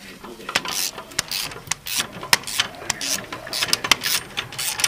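Ratchet wrench clicking in short runs, with sharp metallic clicks and clinks of hand tools.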